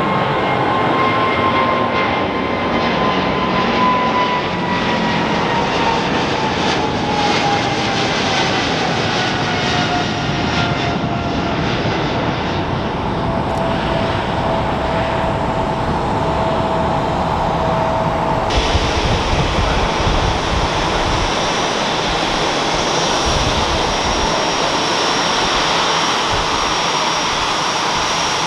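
Boeing 777's GE90 jet engines at takeoff power as the airliner climbs away, with a whining tone that slowly falls in pitch over a heavy rumble. About two-thirds through it changes abruptly to an Airbus A350's Rolls-Royce Trent XWB engines idling as it taxis close by, with a steady high whine.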